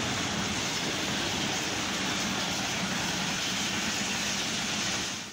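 Pakistan Railways passenger coaches rolling past at speed: a steady rushing noise of wheels on the rails.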